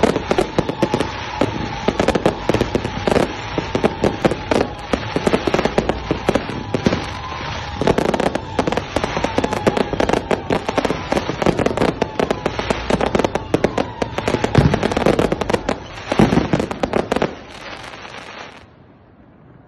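A fireworks barrage going off: a dense, continuous stream of crackling, popping and sharp bangs that dies away near the end.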